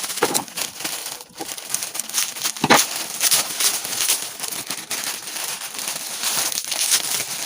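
Packaging crinkling and rustling continuously as a parcel is handled and opened, with many small crackles and one louder crackle about two and a half seconds in.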